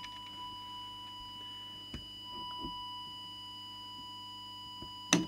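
Steady single-pitched test tone from an audio tone generator modulating a CB transmitter while its FM deviation is set, over a faint low hum. A small click about two seconds in and a short sharp knock near the end, the loudest sound.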